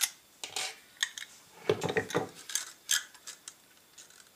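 Clicks and clinks of a disassembled Baikal MP-654K CO2 pistol's metal frame and barrel being handled and set down on a wooden table, with a few heavier knocks about two seconds in.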